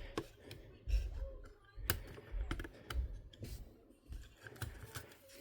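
Scattered small clicks and taps of hand tools and plastic parts being handled while a Sony MZ-R3 MiniDisc recorder is taken apart. A few dull low bumps come about 1, 2.5 and 3 seconds in.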